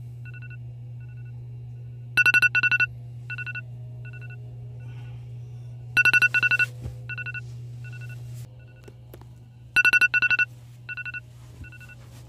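Electronic alarm tone beeping at a high pitch: three loud bursts of quick beeps about four seconds apart, with softer beeps between, over a steady low hum.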